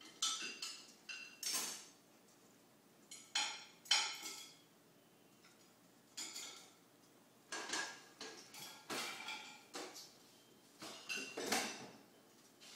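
Irregular light clinks and clatters of hard objects, about fifteen in loose clusters, some ringing briefly.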